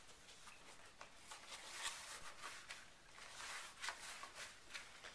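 Faint handling noises: light scrapes, rustles and small clicks of gloved hands moving things on a table, a little busier about two seconds in.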